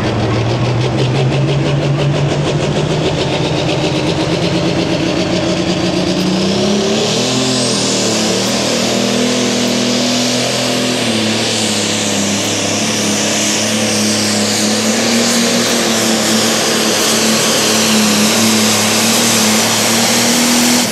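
John Deere pro stock pulling tractor's turbocharged diesel engine running flat out under load as it drags a weight-transfer sled. A high whine rises about a third of the way in and holds over the steady engine note, and the sound drops off suddenly at the end.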